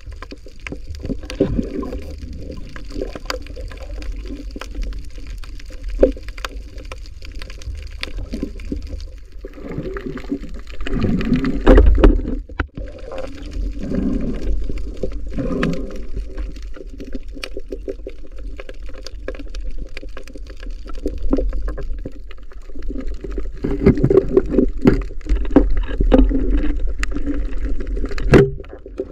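Muffled underwater sound of water moving around a diver and the camera: a constant low rumble with swelling surges, and many scattered sharp clicks. It grows louder around twelve seconds in and again from about two-thirds of the way through.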